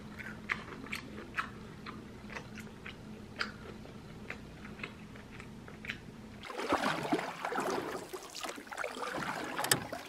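Close-up chewing of crisp cucumber, with scattered sharp crunches and wet mouth clicks. About six and a half seconds in, this gives way to a louder, steady rushing noise.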